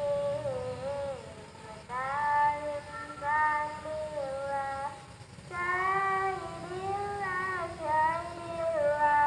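A single high voice singing a slow, wavering melody in long held phrases, with short breaks about two and five seconds in.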